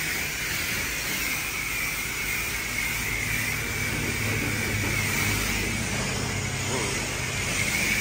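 Car-wash equipment running steadily: a low machine hum under an even hiss, with a faint high whine held throughout.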